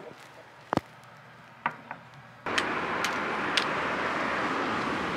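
A small ceramic dish set down on a wooden shelf with a light knock, and a second faint knock a second later. Then, about halfway through, a sudden cut to steady outdoor rushing noise of wind and the road.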